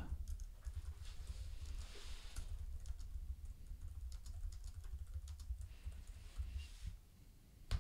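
Faint, fast typing on a computer keyboard: a quick, irregular run of key clicks that stops near the end.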